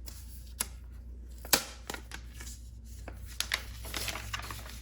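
Hands handling the keyboard and its packaging. There are a few sharp taps and knocks, the clearest about a second and a half in and several more near the end, with soft rustling between them.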